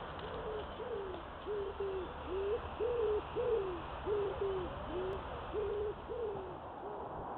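A bird giving a run of low cooing notes, about two a second, each note rising and then falling away, over a steady hiss.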